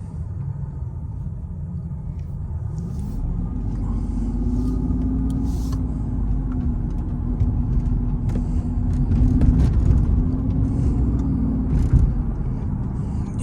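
Mercedes-Benz CL600's twin-turbo V12 pulling under acceleration, heard from inside the cabin: the engine note rises about three seconds in, holds steady, then eases back near the end. It runs smoothly on all twelve cylinders now that the misfire is fixed.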